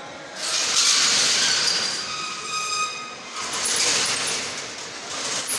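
Loud air hissing from a heavy vehicle's air brakes in two long surges, with a high squeal near the end of the first. A third surge begins just before the end.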